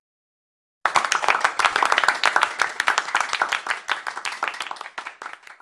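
Applause: many hands clapping. It starts about a second in and fades away near the end.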